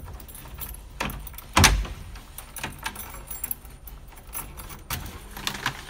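Light metal jingling and scattered clicks, with one louder knock about a second and a half in.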